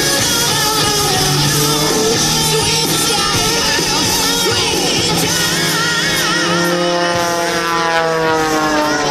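Rock music with singing. In the last few seconds an aerobatic plane's engine and propeller drone comes through, sinking slowly in pitch.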